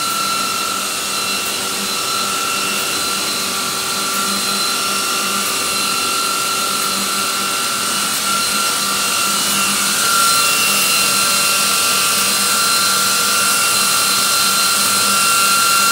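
Biesse Rover 20 CNC router running, its spindle giving a steady high whine over a loud hiss, a little louder about ten seconds in.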